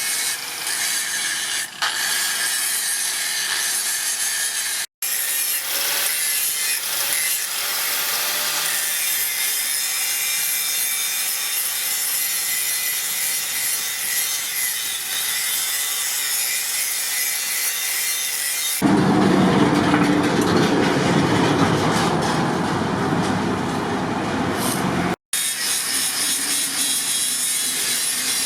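Steady rasping of steel being worked abrasively, broken by two abrupt cuts. After about two-thirds of the way through it turns louder and deeper for a few seconds.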